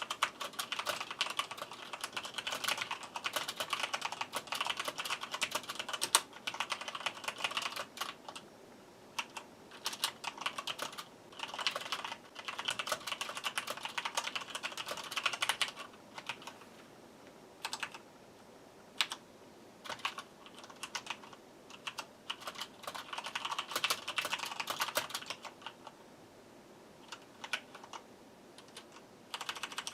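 Corsair K70 mechanical keyboard being typed on: fast runs of key clicks broken by pauses and scattered single keystrokes, as its cleaned switches are tested after a sugary-drink spill.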